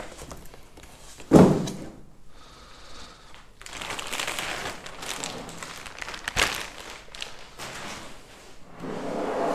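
An emptied cardboard box set down with one loud thump about a second in, then a plastic bag rustling and crinkling as it is pulled off a metal network switch, with a sharp knock partway through and more rustling near the end.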